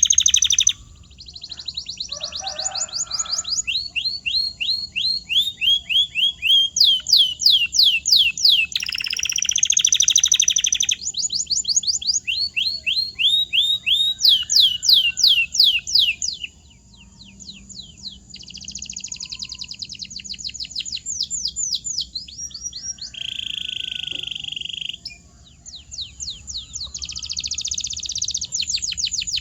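Domestic canary singing a long, unbroken song: fast trills of repeated down-slurred whistled notes, several a second, switching to a new phrase every few seconds, with buzzy rolling passages between them.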